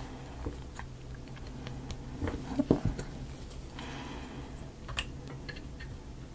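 Small wooden model-kit pieces handled and fitted by hand: scattered light clicks and taps, with a busier cluster of knocks a little over two seconds in, a short rustle about four seconds in and one sharper click near five seconds.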